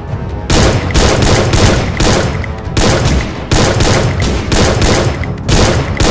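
Rapid bursts of automatic gunfire, one volley after another, roughly once a second.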